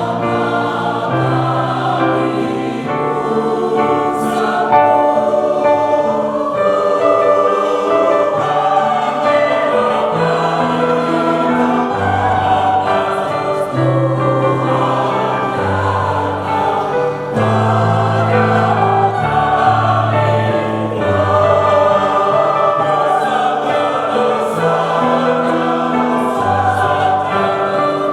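Church choir singing a hymn in parts, with sustained chords held over low bass notes that change every second or two.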